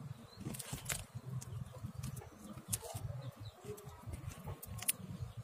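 Faint background ambience: a low rumble with a few light clicks scattered through it.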